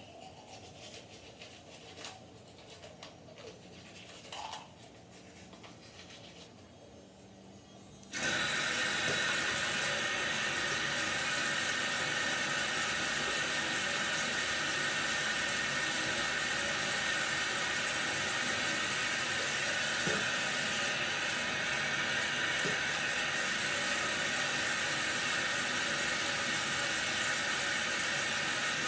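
Faint toothbrush scrubbing, then about eight seconds in a bathroom tap is turned on and water runs steadily into the sink.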